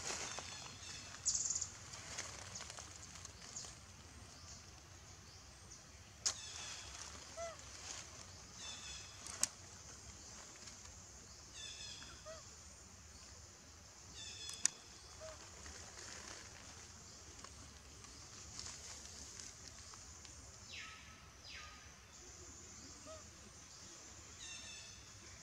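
Quiet forest ambience: high-pitched bird calls repeat every few seconds, with a few sharp clicks.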